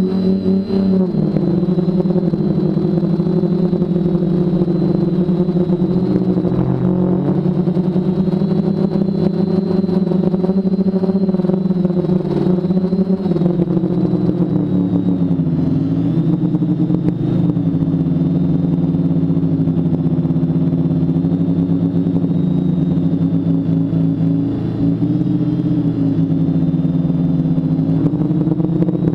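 TBS Discovery quadcopter's four BirdDog 900kv brushless motors spinning 10x4.5 propellers in flight, a steady loud buzz whose pitch wavers up and down with throttle, picked up by a camera mounted on the frame.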